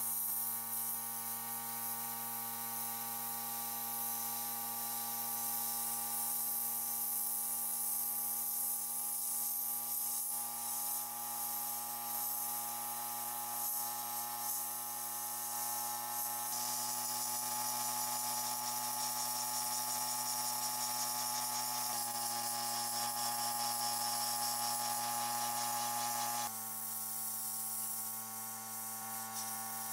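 Sandblasting cabinet in use: compressed air and abrasive hiss steadily from the blast nozzle against rusty stove parts, over a steady droning hum. The sound shifts slightly a few times as the shots change.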